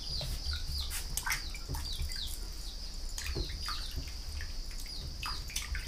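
Birds chirping over and over in short, falling chirps, together with small splashes and knocks of hands washing a raw green mango in a steel bowl of water.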